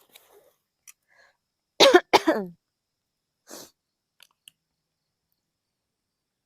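A woman coughing twice in quick succession about two seconds in, loud and harsh, followed by a softer breath about a second later.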